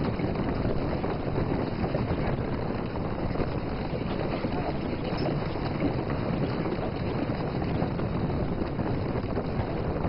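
A herd of horses galloping: a dense, steady drumming of many hooves on dry ground, mixed with wind.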